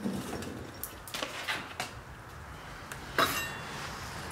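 Nissan Leaf single-speed reduction gearbox casing being slid off the EM57 electric motor by hand: metal scraping and several clunks of casing on casing, the loudest knock about three seconds in.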